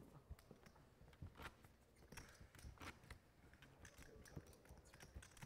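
Near silence: faint room tone with a few soft, scattered clicks.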